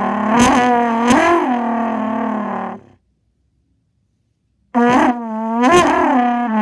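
Trumpet blown in a long buzzy held note with quick pitch dips, imitating a race car. It lasts about three seconds and stops; after a short silence a second blast starts near the end.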